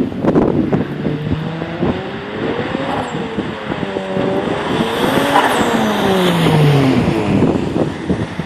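Turbocharged Hyundai Tiburon V6 engine and exhaust revving: the pitch rises about a second in, eases off, climbs higher to the loudest point about halfway, then falls away.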